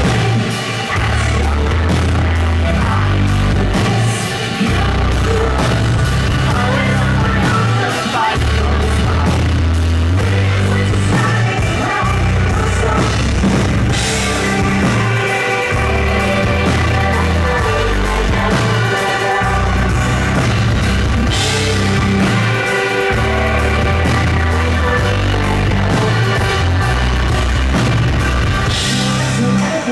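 Live rock band playing loud, with heavy bass and drums and a woman singing lead.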